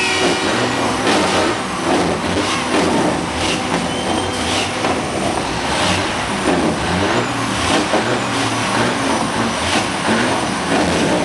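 Caterpillar C15 inline-six diesel in a 2000 Western Star show truck being revved again and again, the engine note rising and falling with each blip, loud enough to throw black smoke from its stacks. Other trucks' diesels run underneath it.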